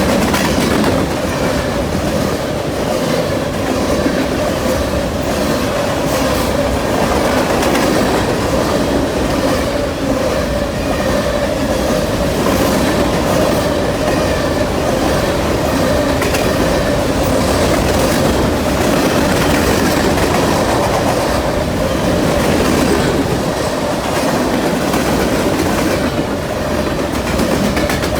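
Freight train rolling past: a steady rumble of wheels on rail with repeated clickety-clack over the rail joints and a steady tone running through it.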